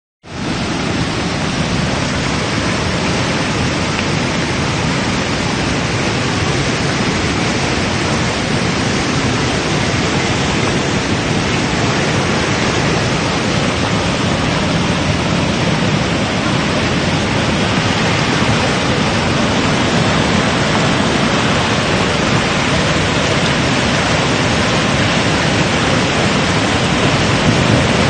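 Floodwater rushing and churning in a fast torrent down a street: a steady, loud wash of water noise.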